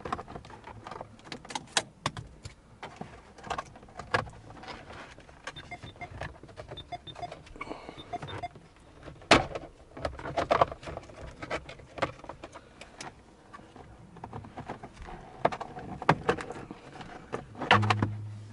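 Plastic steering column covers of a Hyundai Getz being unclipped and pulled apart by hand: irregular clicks, snaps and rattles of hard plastic.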